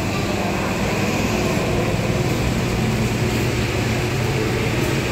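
Steady air-conditioning hum and hiss, even throughout with no distinct events.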